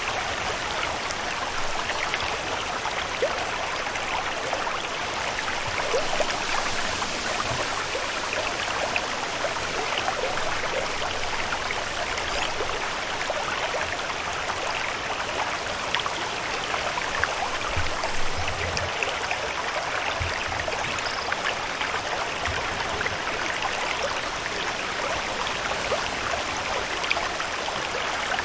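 Steady water ambience: a dense, even patter of small drips and splashes with no break, as from running or falling water on a lake.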